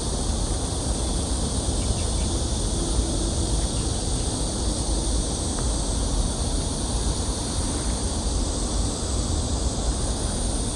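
A steady, unbroken chorus of insects, crickets by their high even hiss, over a low rumble.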